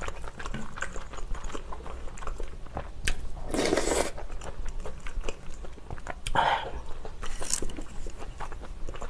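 Close-miked eating of spicy beef soup with glass noodles: chewing with a few sharp clicks. There is a loud slurp from a spoonful about three and a half seconds in, and shorter slurps around six and a half seconds.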